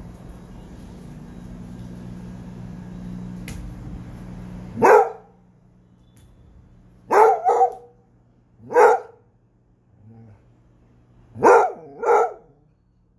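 Basset hound barking: six barks in short bouts, first a single about five seconds in, then a quick double, another single, and a second quick double near the end. A steady low hum runs underneath before the first bark.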